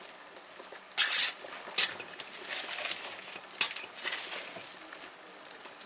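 Metal spoon spreading and patting a thick coconut and sour-cream filling in a cake tin: irregular soft squishy dabs and scrapes, the loudest about a second in.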